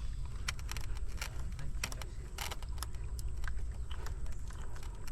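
Scattered small clicks and rattles as electrical wires are handled and plastic wire nuts are twisted onto the spliced conductors, over a low steady background.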